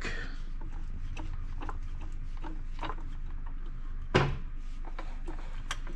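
A jack and a block of wood being handled and set under the engine: scattered light clicks and one sharper knock about four seconds in, over a steady low hum.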